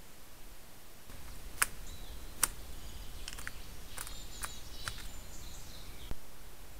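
Woodland birds chirping and whistling over a low outdoor hiss, with about five sharp clicks in among the calls; everything cuts off abruptly near the end.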